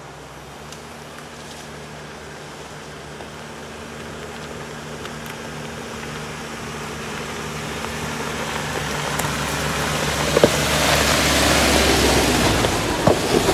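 Jeep Wrangler JK driving slowly on a dirt trail, its engine running steadily under a growing rush of tyre and trail noise. A few sharp knocks come near the end.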